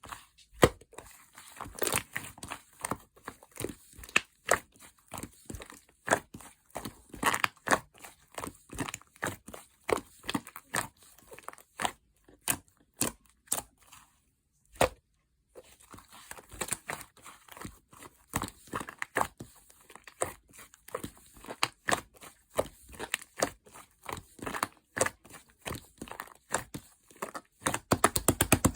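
Fluffy clay slime being squished and stretched by hand, making a dense run of small sticky pops and crackles, with a brief pause about halfway through.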